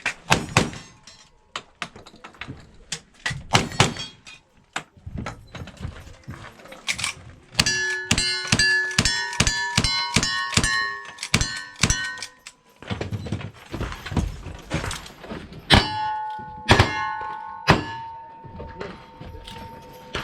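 A cowboy action shooting stage being shot: a string of gunshots, each hit answered by a steel target ringing. A rapid run of about ten shots with steel ringing comes about a third of the way in, and another burst of hits with ringing steel near the end.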